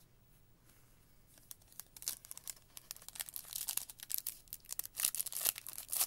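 A shiny foil trading-card pack wrapper being torn open and crinkled by hand, a dense crackle that starts about a second and a half in and grows louder toward the end.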